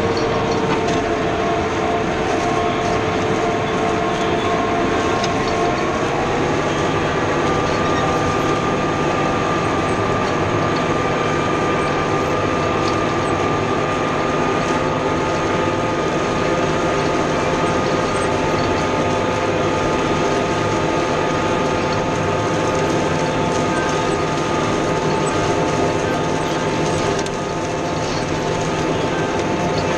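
New Holland T4.100 tractor's diesel engine running steadily under heavy load while pulling a five-shank chisel plow. The pitch of the engine drone rises a little about six seconds in.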